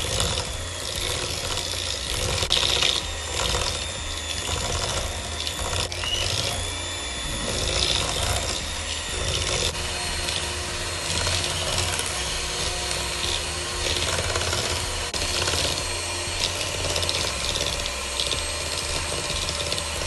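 Electric hand mixer running steadily, its two wire beaters creaming butter and sugar in a stainless steel bowl, with many small clicks as the beaters knock against the bowl.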